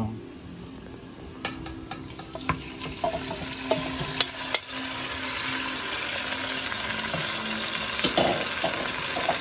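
Chicken pieces tipped into hot oil with garlic and onion, with a few knocks as they go into the pot, then a steady sizzle of frying that builds from about three seconds in.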